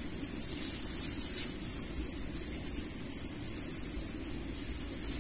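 Steady outdoor background noise: a low rumble with a thin, high-pitched whine above it that fades out about four seconds in.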